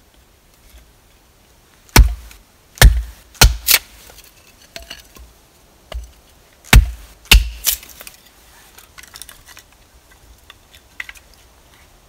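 Small hatchet splitting short sticks into kindling on a wooden board: sharp chopping knocks of blade into wood, four in a quick cluster about two seconds in and four more about six seconds in, followed by light clicks of split pieces.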